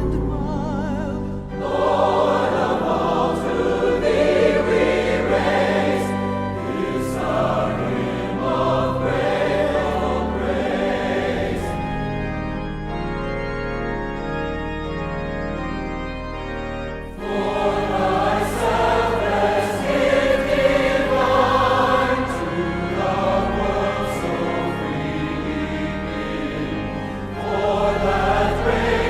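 Choir singing a hymn with organ accompaniment. About twelve seconds in the voices drop out for a few seconds of held organ chords, then the singing comes back in.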